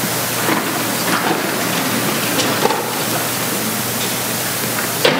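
Audience standing up from folding theatre seats: a steady rustling wash of clothing and movement, with a few soft seat knocks.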